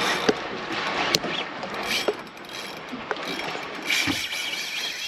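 Shimano Twin Power spinning reel under heavy load from a hooked, running fish, its drag and gears ratcheting in irregular clicks.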